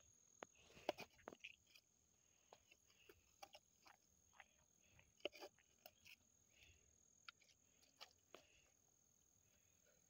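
Faint, scattered scrapes, clicks and squelches of hands and a trowel digging wet mud and dirt out of a small hole, the sharpest about a second in and around five seconds. A faint steady high tone runs underneath.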